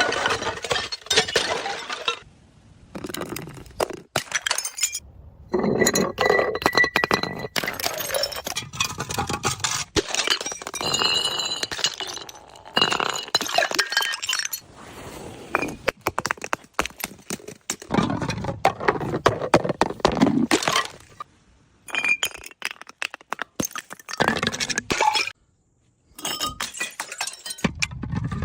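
Glass bottles smashing one after another, with shards clinking and ringing briefly after each break. The breaks come in separate short bursts with abrupt cuts between them.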